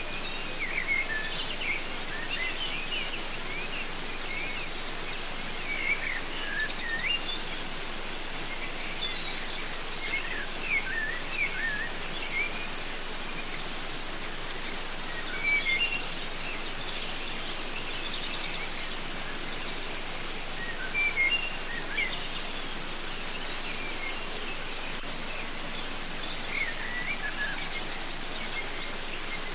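Steady rush of a waterfall with birds chirping over it in short, quick notes that come in scattered flurries, busiest in the first dozen seconds and again briefly around the middle and near the end.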